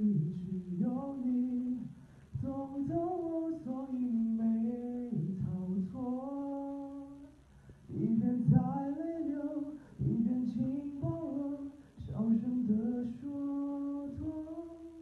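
A man singing solo and unaccompanied into a handheld microphone, holding notes and sliding between them, in phrases broken by short pauses.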